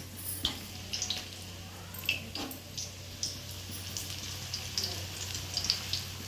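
Onion pakora batter sizzling and crackling in hot mustard oil in a kadhai, with scattered small pops and a few sharper clicks.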